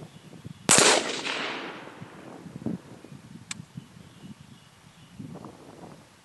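A single rifle shot about a second in, fired at a ceramic body-armor plate target, followed by a rolling echo that fades over about a second. A faint sharp tick comes a few seconds later.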